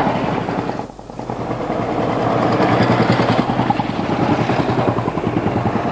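Royal Enfield Bullet single-cylinder motorcycles riding past, their engines running with a fast, even beat. The sound drops briefly about a second in, then grows louder as a bike comes closer.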